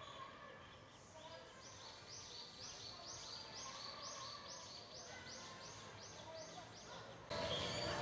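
Eastern spot-billed ducklings peeping: a steady run of short, high, rising peeps, about three a second, starting about a second and a half in. Near the end a sudden, louder, even rush of noise sets in over them.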